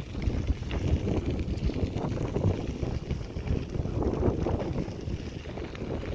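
Wind buffeting the microphone: a rough, uneven rumble that rises and falls in gusts.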